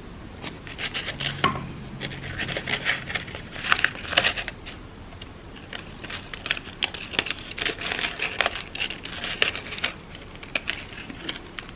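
Crepe paper crinkling and rustling in short, irregular crackles as paper petals are handled and pressed into place on the flower's centre.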